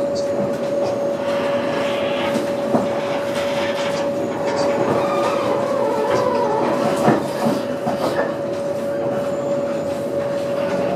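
Interior running noise of a Translohr rubber-tyred guided tram on the move: an even rumble with one steady tone held throughout, and two sharp clicks, about three and seven seconds in, the second the louder.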